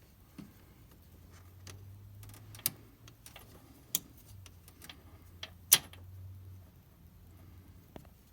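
Small clicks and taps from hands handling the brake pressure switch and its rubber grommet washers, with three sharper clicks standing out, the loudest about two thirds of the way in, over a faint low hum.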